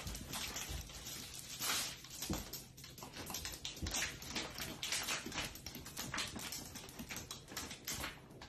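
A dog's claws tapping and clicking irregularly on a hard kitchen floor and cabinet fronts as it stands on its hind legs and shifts its feet.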